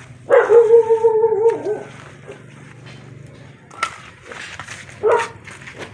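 A dog gives one drawn-out whine lasting about a second and a half that bends down at its end, then a short bark about five seconds in.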